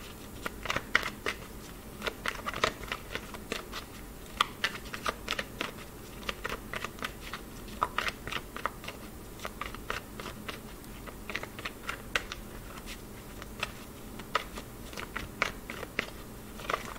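A tarot deck being shuffled by hand, packets of cards moved from hand to hand: a quick, irregular run of light card clicks and slaps.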